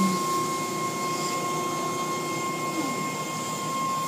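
Automatic car wash machinery running, heard from inside the car: a steady whir of motors and spraying water with a thin, steady high whine. A lower hum drops in pitch and stops about three seconds in.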